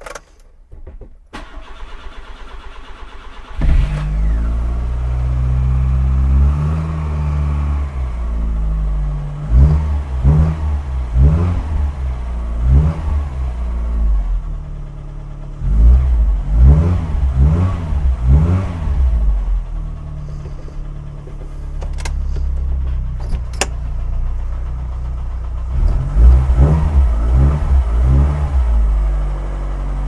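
A 1991 Rover Metro's four-cylinder engine cranks briefly on the starter and catches about three and a half seconds in. It then runs on choke from a cold start and is blipped up and down in three bursts of revs. It is running smoothly without the earlier misfire, now that a new ignition coil and HT leads are fitted.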